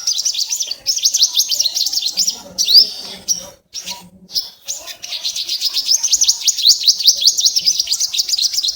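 Purple sunbird singing: two long runs of rapid, high, thin twittering notes, with a brief pause about four seconds in.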